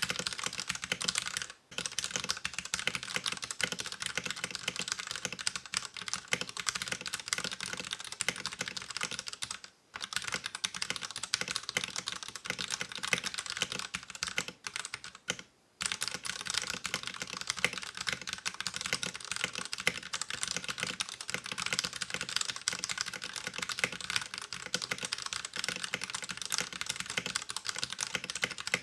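Continuous fast typing on an LTC Nimbleback 65% mechanical keyboard with stock, unlubed 60g Akko Purple linear switches and thin ABS keycaps: a dense stream of keystrokes broken by a few brief pauses.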